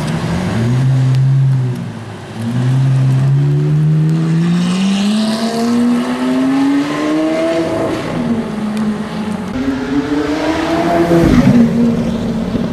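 Lamborghini Aventador LP700-4's 6.5-litre V12 through a Powercraft aftermarket exhaust, accelerating away: a short rev, then the pitch climbs steadily for several seconds, dips, and climbs again to a loud peak that drops off sharply near the end.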